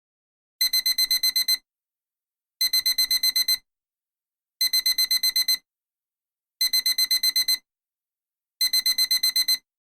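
Alarm clock beeping in five bursts of rapid high beeps, about eight beeps a second. Each burst lasts about a second and repeats every two seconds.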